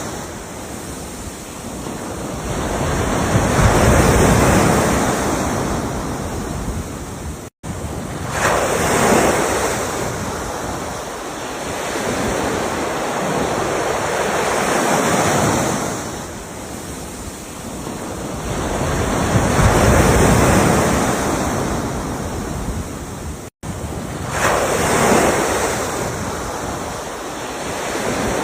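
Ocean waves breaking and washing up the shore, one swell about every five to six seconds, each rising and then fading. The sound cuts out for an instant twice.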